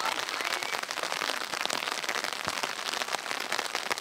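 Steady patter of rain, a dense crackling hiss made of many tiny drop ticks.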